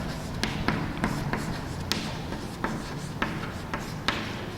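Chalk writing on a blackboard: a run of irregular sharp taps and short scrapes as a word is written out.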